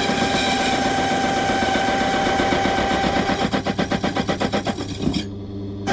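Key-cutting machine running with a steady whine as its cutter chatters against a lever safe key blank, turning into a fast, even rattle for a second or so near the end. The machine cuts out about five seconds in and starts again just at the end.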